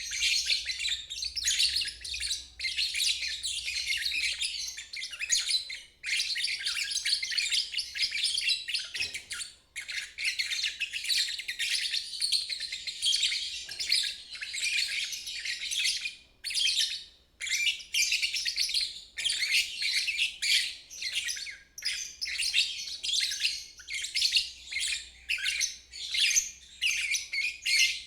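Lovebird singing its long, rapid chattering trill (ngeriwik), running on almost without pause and broken by a few short gaps.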